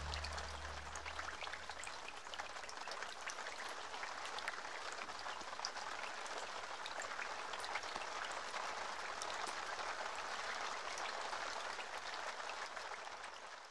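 The low notes of closing music die away about a second in, leaving a steady crackling hiss full of tiny clicks, like rain pattering, which fades out near the end.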